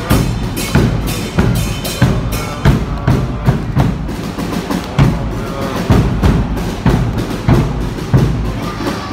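Large bass drum beaten with a mallet in a steady beat, about one heavy stroke every three-quarters of a second, with lighter percussion hits in between.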